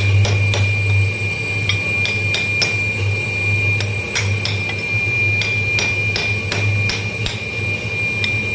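Steady low pulsing drone with a constant high whine, over many irregular sharp metallic clicks and knocks, in the setting of a molten-steel pour.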